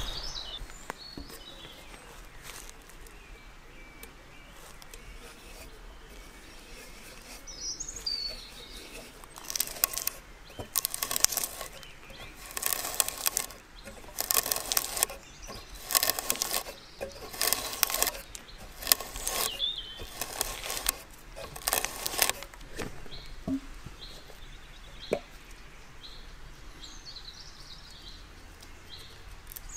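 Spiral hand auger boring into a green log: repeated short cutting strokes, about one a second, from about ten seconds in until about twenty-two seconds in. Two sharp knocks follow, and birds chirp faintly throughout.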